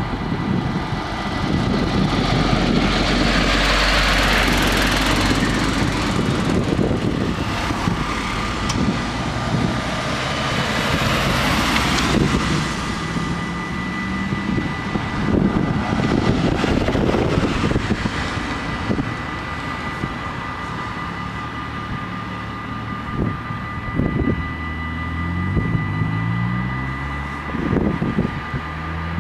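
Level-crossing warning bells ringing steadily, over a rushing noise that swells twice in the first half. Near the end the rising engine note of an approaching GTW diesel railcar comes in.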